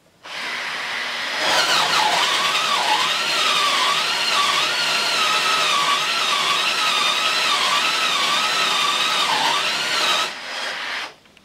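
Cordless drill boring a Forstner bit into a wooden block. The motor whine wavers up and down as the bit cuts under load, starting about a quarter second in and stopping shortly before the end.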